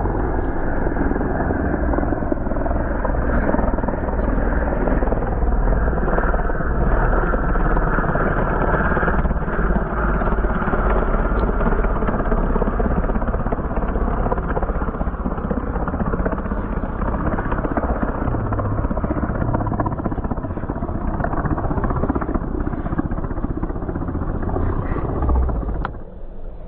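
Twin piston engines of a 1930s de Havilland biplane airliner running steadily with propellers turning, a dense continuous engine drone. It drops away abruptly near the end.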